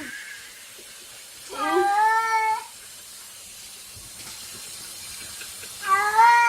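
Domestic cat giving long, drawn-out meows: one about one and a half seconds in, lasting about a second, and another starting near the end, over a faint steady hiss.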